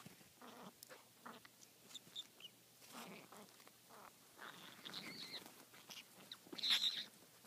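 Two conures playing close up, giving soft short chirps and small clicks as they move about; one louder, sharper call comes about two-thirds of the way through.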